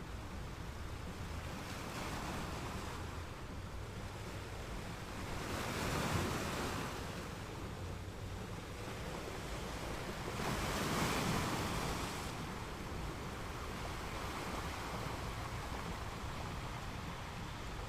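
Ocean surf: a steady wash of waves, with two waves breaking louder about six and eleven seconds in.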